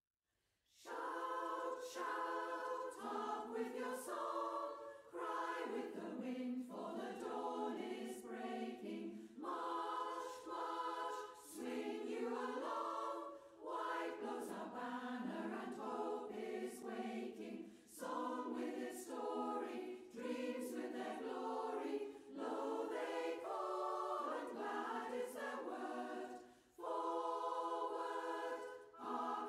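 A choir singing, starting about a second in.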